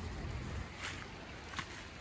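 Faint footsteps in dry leaf litter, two soft steps about a second and a second and a half in, over a low rumble on the microphone that fades early.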